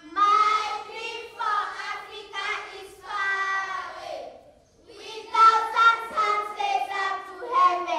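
A group of children singing together, in phrases with a short break about halfway through.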